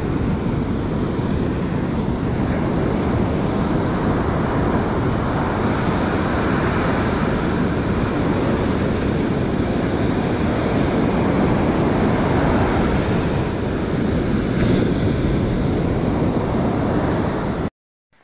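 Ocean surf breaking on a sandy beach, a steady rush of waves with wind buffeting the microphone. It cuts off suddenly near the end.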